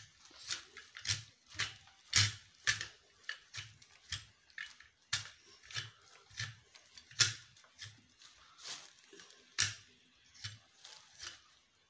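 Ceiling fan's metal downrod being twisted by hand into the fan motor's mount, giving irregular clicks and knocks about two a second.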